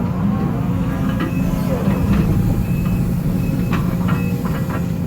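Case CX210D excavator's diesel engine running steadily while digging, with a few faint knocks and a faint shifting whine over it.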